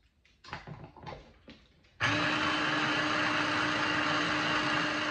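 Small electric food processor blending a chimichurri of parsley, olive oil and vinegar. A few short knocks of handling come first; about two seconds in the motor starts and runs steadily with a constant hum.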